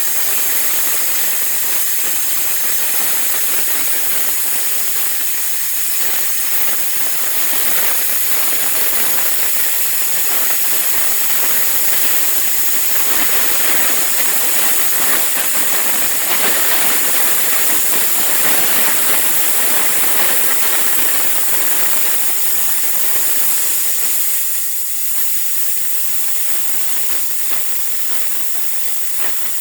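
Air plasma cutter cutting through the steel of a car frame: a loud, steady hissing of the air-driven arc with a fine crackle, easing slightly near the end.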